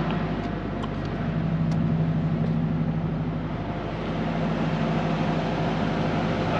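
Diesel semi-truck engine idling with a steady hum.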